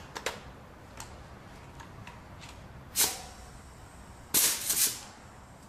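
A few light clicks of metal fittings, then two short bursts of compressed-air hiss, the second longer, as a leak-down tester's air hose is coupled to the adapter in a spark plug hole.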